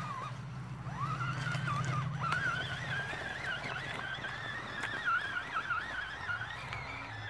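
Electric motor and drivetrain of an Axial SCX10 Jeep Rubicon RC crawler whining as it climbs a dirt slope, the pitch wavering up and down constantly with throttle and load, with a few faint ticks.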